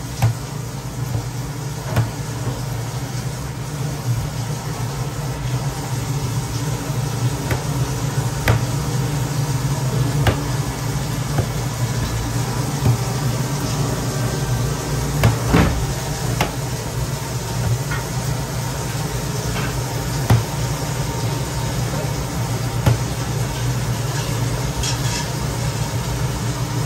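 A steady low machine hum, with scattered light knocks and clicks as a knife cuts into a raw leg of lamb and taps the stainless steel tray beneath it.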